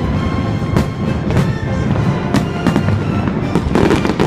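Aerial fireworks going off in a string of sharp bangs, bunched together near the end, with music playing along.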